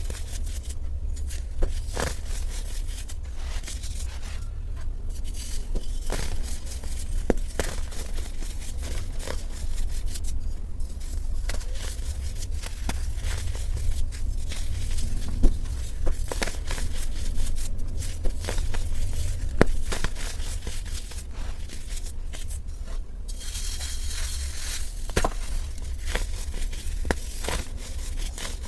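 Dyed baking soda blocks being crushed and crumbled: dry crunching with sharp crackles and snaps at scattered moments, a denser crunchy stretch about 23 seconds in, over a steady low hum.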